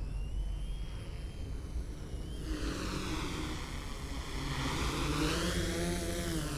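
Electric motors and propellers of a multirotor drone whining as it comes in close. The sound grows stronger about a third of the way in, and its pitch swoops down and back up as the throttle changes. A low steady rumble lies underneath.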